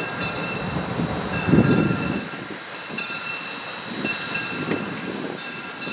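Steam locomotive approaching slowly, with a high ringing tone that comes and goes and a brief louder low rumble about a second and a half in.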